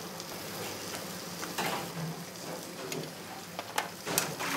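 Food sizzling as it fries in a pan, with a few sharp knocks and clinks over it.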